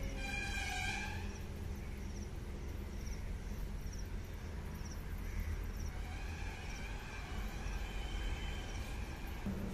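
Outdoor ambience: a steady low rumble, with a faint high chirp repeating about every half second, likely an insect or bird, and a short high-pitched call in the first second.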